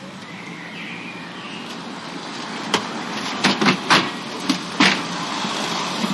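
Steady background traffic noise that grows slowly louder, with a quick run of about seven sharp knocks and clatters in the middle.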